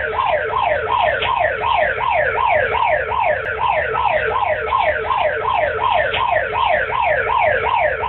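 Electronic emergency alert siren sounding a fast, repeating falling wail, about three downward sweeps a second, steady and loud.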